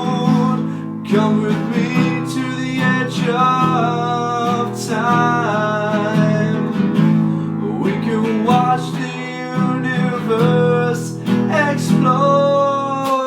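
Acoustic guitar strummed and picked steadily, playing an instrumental passage of the song.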